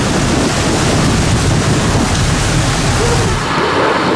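Wind buffeting the microphone over the rush of water and spray from a motor boat under way in a rain squall. The low buffeting drops away about three and a half seconds in.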